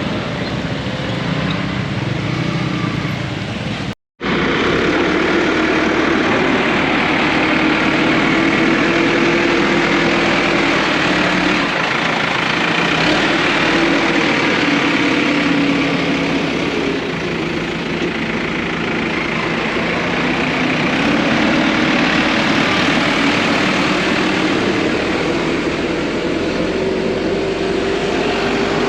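An engine running steadily under load, its hum wavering a little in pitch, with a brief total cut-out about four seconds in.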